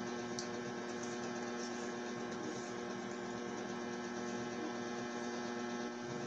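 Steady electrical hum over a faint hiss: room tone, with no other sound.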